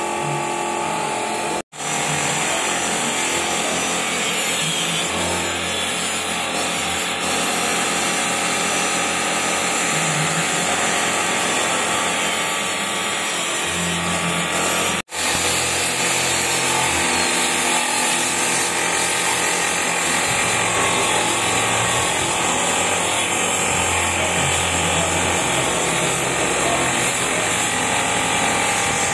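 Steady, loud hissing and whirring of a workshop tool running without a break. It cuts out suddenly twice, once near the start and once about halfway.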